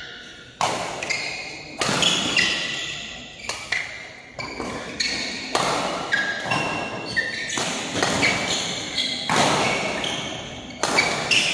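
Badminton rackets striking the shuttlecock in a fast doubles rally, a sharp hit every half second to a second, echoing in a large hall.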